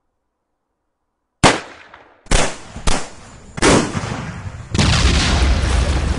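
Recorded gunshot, firecracker, fireworks and explosion samples played back one after another. After a short silence comes a single sharp bang, then three more sudden bangs over the next two seconds, each trailing off. About three-quarters of the way through, a longer sustained explosion begins and carries on past the end.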